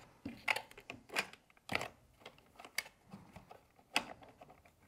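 Irregular small clicks and knocks of airsoft gun parts being handled as the SSR63's grip and gearbox are fitted into its body, the loudest about four seconds in.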